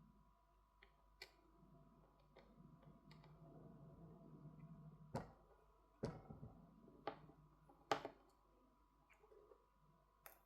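Faint, scattered clicks and light taps of a small screwdriver and tiny screws as a smartphone is taken apart, with a few sharper clicks between about five and eight seconds in.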